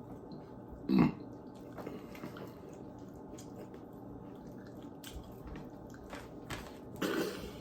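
People chewing and eating chicken nuggets: soft wet mouth sounds and small scattered clicks, with a short louder sound about a second in and another near the end.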